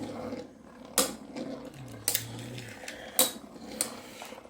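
Lightning L-Drago and Fang Leone Beyblade spinning tops clashing in a plastic stadium: a few sharp clacks of the metal wheels striking, over a low rattling scrape of the spinning tops.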